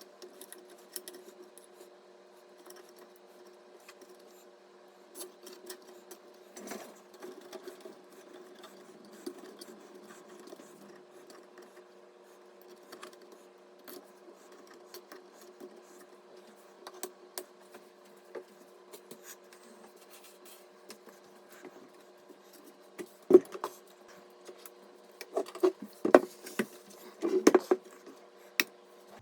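Small clicks, scrapes and rubbing from computer parts being handled and fitted, over a steady low hum. Near the end comes a run of louder sharp clicks and knocks.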